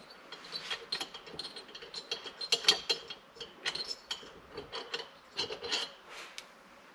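Irregular metallic clicks and scraping of a socket ratchet working the bolts that hold down the cylinder head of an air compressor.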